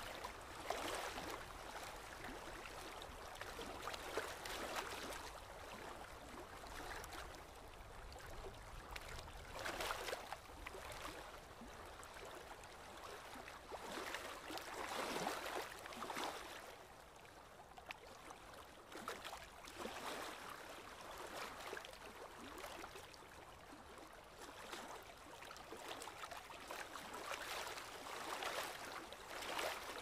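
Small waves lapping and splashing against a boat's hull, rising and falling in irregular swells every few seconds.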